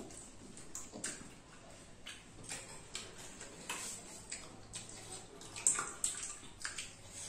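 Quiet scattered clicks, crackles and light splashes of pani puri being prepared by hand: crisp puri shells cracked open, filling spooned from a steel bowl, and the puris dipped in the spiced water. The clicks come a little more often and louder about two-thirds of the way through.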